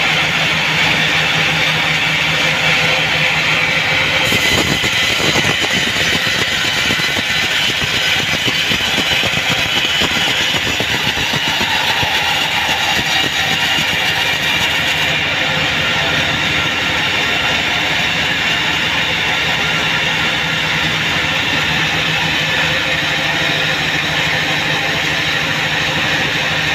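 Vertical band sawmill running steadily with a constant hum. From about 4 s to about 15 s a higher hiss joins it as the band blade rips lengthwise through a mahogany log.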